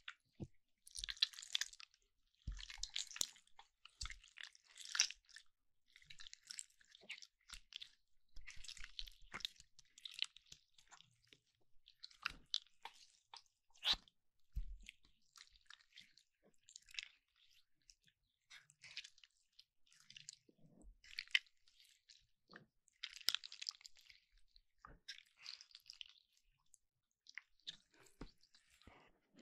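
Slime being squished and stretched close to the microphone: short bursts of sticky crackling and popping every second or two, with silent gaps between.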